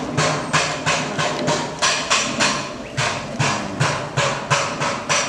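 Background music with a steady percussive beat, about four knocking hits a second.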